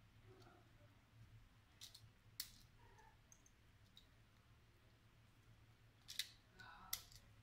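A few faint, sharp clicks of hand crimping pliers squeezing a metal crimp sleeve onto a speargun's shooting line, two about two seconds in and two more near the end, otherwise near silence.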